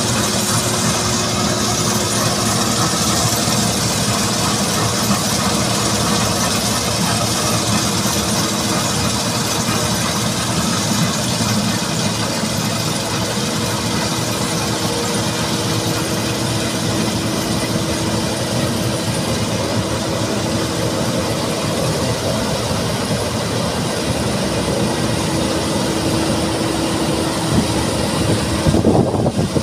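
Claas combine harvester running at work in a grain field: a steady engine and threshing drone with a steady hum through it. The sound changes briefly near the end.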